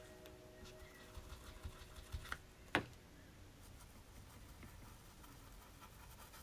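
Faint dabbing and scuffing of a stencil brush working paint through a stencil, with a few light taps between about one and three seconds in.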